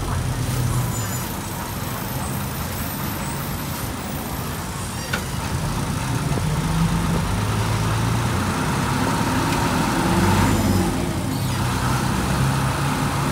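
Hino city bus engine heard from inside the open-windowed cabin as the bus drives through traffic. The engine note climbs and grows louder through the second half as the bus picks up speed, with road and traffic noise coming in through the windows.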